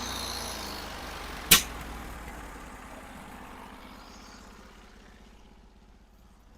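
Norwood HD36 portable bandsaw mill's engine running and fading away steadily, with one sharp click about a second and a half in.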